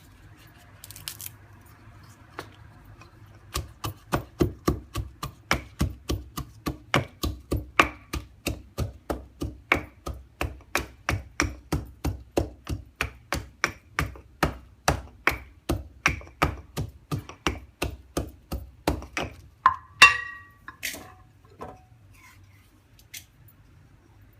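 Ginger, turmeric and herbs being pounded with a pestle for a kashayam: a steady run of strokes, about three a second, starting a few seconds in and stopping near the end, followed by one louder ringing clank.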